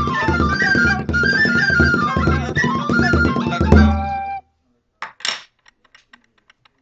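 Irish reels on flute with a Davy Drums bodhrán beaten with a tipper, its deep steady strokes under the melody. The tune ends on a held note and a final drum stroke about four seconds in, followed by two short scuffs and a few faint ticks.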